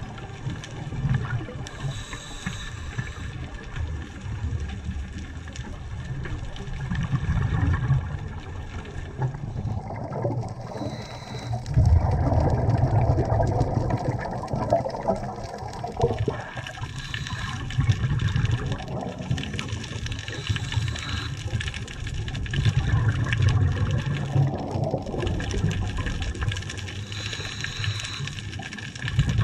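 Underwater sound picked up by a submerged camera: a steady low rumble of water, with louder gurgling bubble bursts every several seconds.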